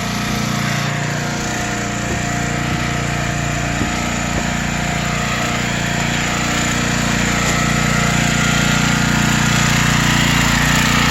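Generac XL3500 portable generator's small engine running steadily under load from several household appliances. It grows a little louder over the last few seconds.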